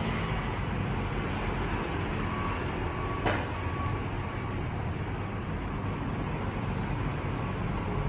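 Steady background rumble and hiss, with a single sharp click about three seconds in.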